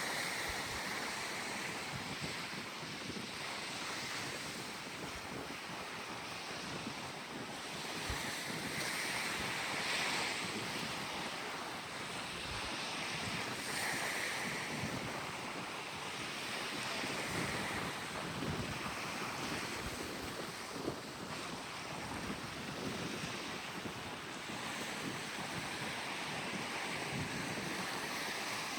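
Wind blowing across the microphone: a steady rush that swells and eases every few seconds.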